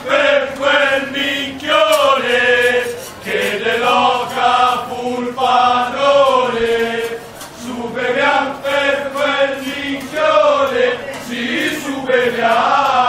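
A group of men singing a chant together, in phrases of long held notes with short breaks between them.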